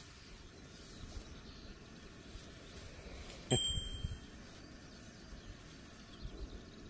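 A small metal bite bell on a carp rod dings once, a sharp strike that rings briefly, about halfway through, with a few low knocks just after.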